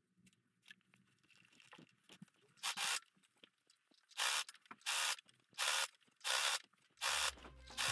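Knit fabric rubbing and rustling in several short bursts as it is pushed under an overlocker's presser foot. Near the end the Brother 4234D overlocker starts running with a steady mechanical chatter.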